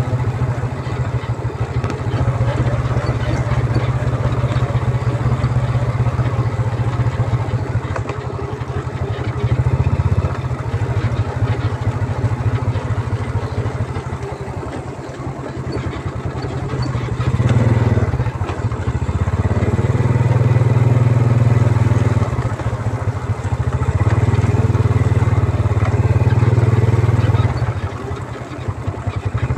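Yamaha Vega R underbone motorbike's small single-cylinder four-stroke engine running under way, with wind and road noise. The engine note eases off about halfway through, picks up strongly a few seconds later and holds, then drops again near the end.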